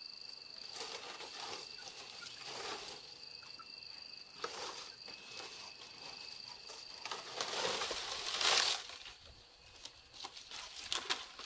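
Dry palm-leaf thatch rustling and crackling as bundles of it are handled, in several bursts, loudest around eight seconds in. A steady high-pitched whine runs underneath and stops about seven seconds in.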